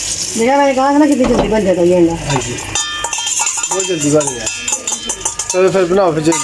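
Long wordless vocal sounds that bend up and down in pitch, heard three times. About three seconds in, a steel mixing bowl clinks against a frying pan and rings briefly.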